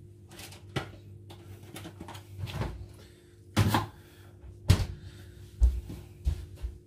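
Kitchen handling noises: a refrigerator door opened and shut among a series of separate knocks and clunks, the loudest about three and a half and four and a half seconds in, over a steady low hum.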